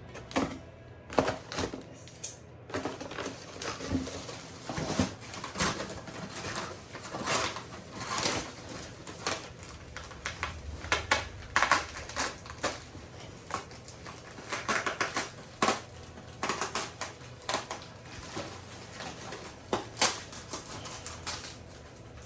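Packing material crinkling and rustling as a shipped plant is unwrapped by hand, in an irregular run of crackles and snaps.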